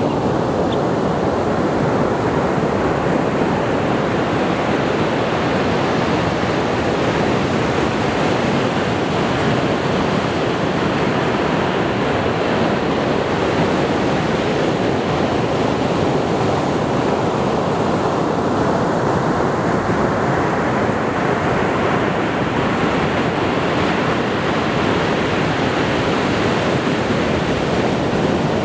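Sea waves washing on the shore: a steady, continuous rush of surf. The hissing upper part of the wash eases off around the middle and builds back up later on.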